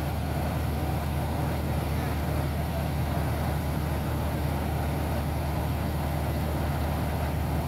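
Hitachi 210 excavator's diesel engine running at a steady low drone.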